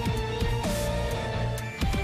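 Background music with guitar and a beat.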